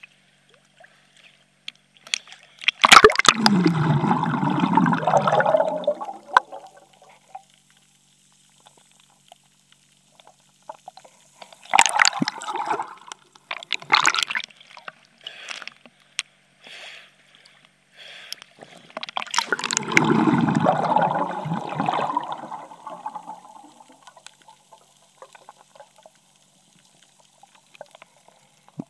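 Water splashing and gurgling around a camera held at and just under the sea surface. It comes in two long bouts, about three seconds in and again about twenty seconds in, with a couple of short splashes between them and quiet stretches otherwise.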